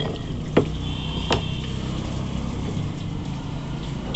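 Two sharp knocks of a butcher's knife striking a wooden chopping block while cutting a chicken, about half a second and a second and a quarter in, over a steady low engine hum.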